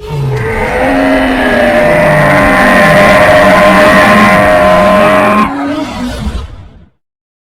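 Cartoon dinosaur sound effect: one long, loud call made of several steady tones layered together, with low pitch glides underneath, which fades out near the end.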